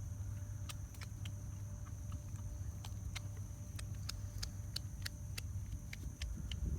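Raccoons eating: irregular sharp clicks and crunches, several a second, from teeth on food, over a low steady rumble.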